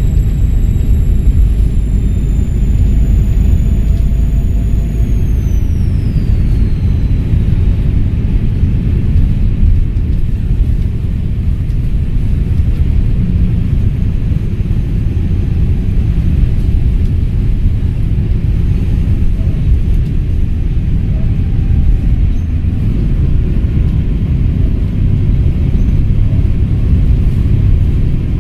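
Volvo B7RLE bus's six-cylinder diesel engine running with a heavy low rumble, over a high turbocharger whistle that holds steady, then falls in pitch and fades about five to seven seconds in as the turbo spools down.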